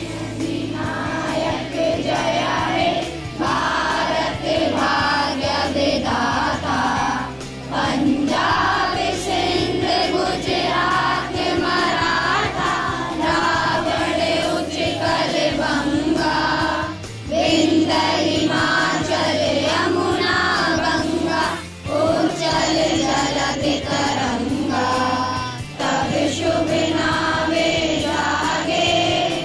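A group singing together in chorus over steady musical accompaniment, with brief breaks between phrases.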